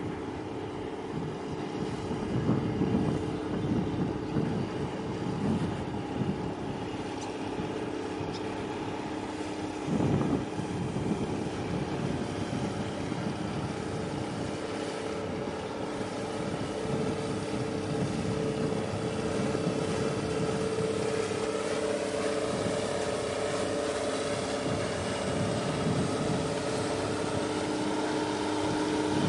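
Boat engines droning steadily, with a hum that gets louder in the second half. Gusty rumble on the microphone and a single thump about ten seconds in.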